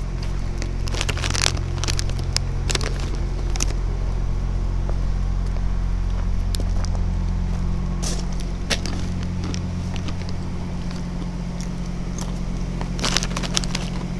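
Scattered, irregular crunches and clicks of someone walking over gravel and camp litter, over a steady low hum.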